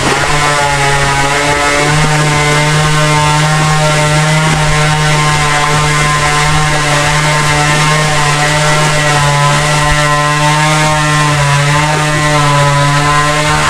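A loud, steady machine drone holding one constant pitch, with a buzzy row of overtones.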